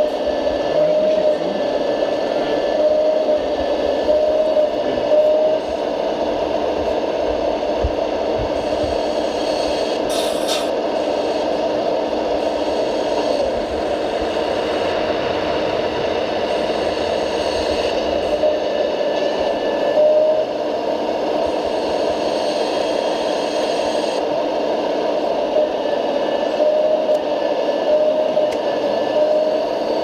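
Scale-model RC Hitachi Zaxis hydraulic excavator working, its hydraulic pump giving a steady whine that wavers slightly in pitch, over a constant background noise. The bucket scrapes and shifts sand as it digs.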